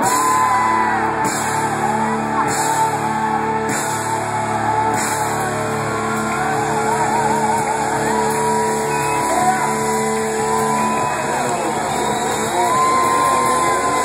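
Live rock band playing loudly: electric guitar holding long sustained notes, one wavering with vibrato about three seconds in, over bass and drums, with a singing voice.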